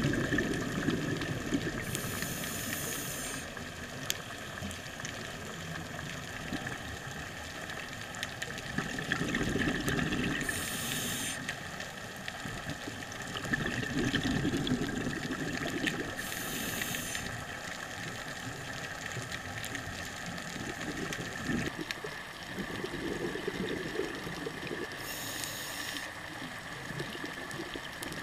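A scuba diver breathing through a regulator underwater: four short hisses of inhaled air, several seconds apart, each followed by the low bubbling rumble of the exhaled breath.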